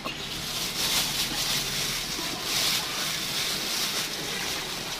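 Water trickling from a plastic dipper onto wet grated coconut in a bucket as it is squeezed by hand to press out coconut milk; a steady watery splashing hiss.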